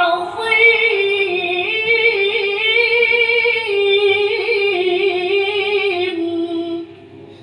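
A Quran reciter's solo voice in melodic tilawah, holding one long ornamented phrase with slow wavering turns of pitch. It breaks off near the end.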